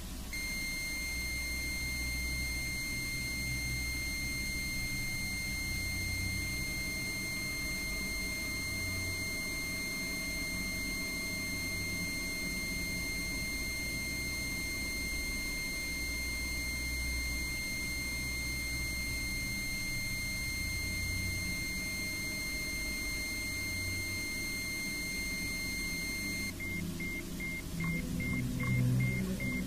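A steady, high electronic tone sounds over a low droning bed that swells and fades. Near the end the tone breaks into rapid pulsing beeps.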